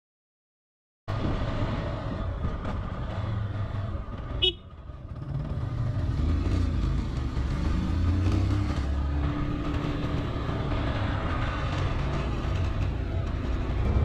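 Motorcycle engine running under way, with wind and road noise, cutting in abruptly about a second in. About four and a half seconds in there is a short high beep, then the engine sound drops away and builds back up.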